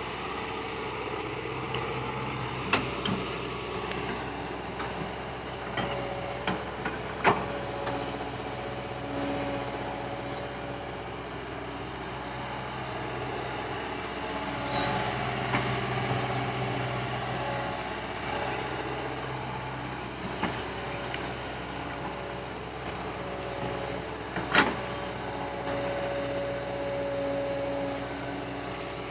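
Hydraulic excavator working: a steady engine drone with tones that come and go, and a few sharp clanks. The loudest clank comes near the end.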